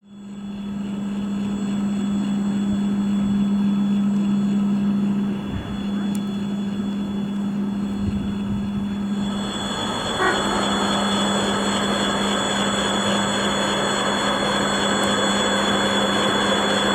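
ED4M electric multiple unit train approaching on the track, its running noise growing louder from about halfway in, over a steady low hum.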